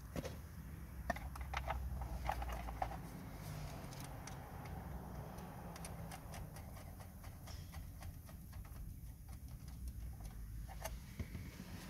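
Scattered light clicks and taps of plastic wiring connectors being handled and pushed home in a steering-wheel hub, over a steady low rumble.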